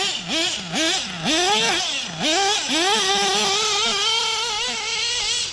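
Small two-stroke petrol engine of an RC buggy being revved: a string of quick throttle blips, each a sharp rise in pitch, then longer revs, then held at high revs with a steady note as the buggy drives off.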